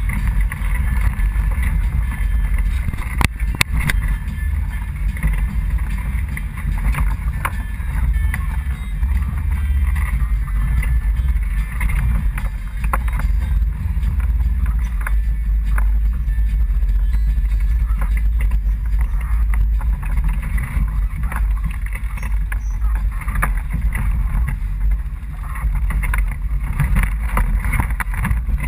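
Polaris RZR XP 1000 side-by-side's parallel-twin engine running under way over a rocky trail, a steady low rumble, with a couple of sharp knocks about three seconds in.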